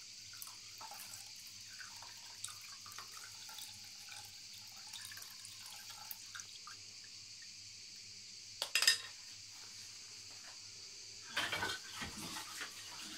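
Hazelnut liqueur trickling faintly from a glass bowl through a small strainer into a steel saucepan. A sharp knock about two-thirds of the way through and a short clatter near the end.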